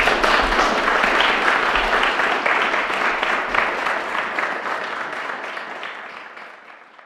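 Audience applauding, a dense steady clapping that tapers off and fades out near the end.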